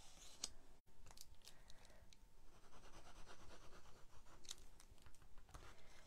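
Faint rustling and scraping of cardstock and patterned paper being handled and slid across a work mat, with a scattering of short scratchy clicks and taps.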